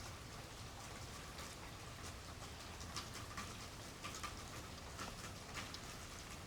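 Light rain falling in a backyard: a soft, even hiss with scattered sharp ticks of single drops hitting nearby surfaces.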